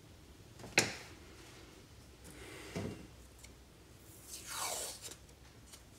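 Small parts and hand tools being handled on a workbench during a fuel injector rebuild: a sharp click about a second in, a soft knock near three seconds, and a drawn-out rasp that falls in pitch near five seconds.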